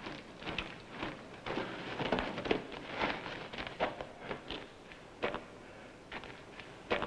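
Irregular crunching steps and scuffs on a gravelly, rocky trail, a dozen or so uneven footfalls.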